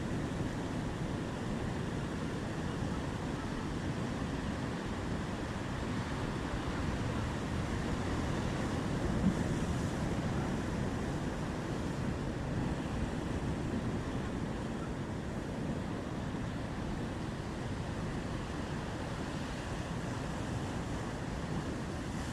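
Rough sea: a steady rush of waves and wind, with one brief thump about nine seconds in.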